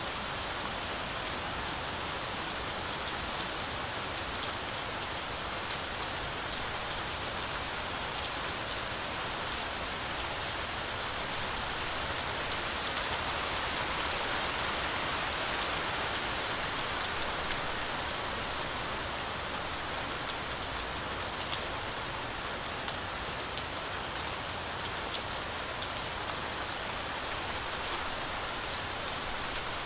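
Heavy, steady rainfall pattering through forest foliage, a continuous hiss of drops with faint individual drips, swelling a little around the middle.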